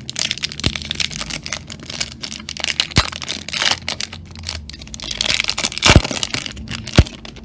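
Foil wrapper of a Topps Chrome trading-card pack being crinkled and torn open by hand: a dense crackle with a few sharp snaps, the loudest two near the end.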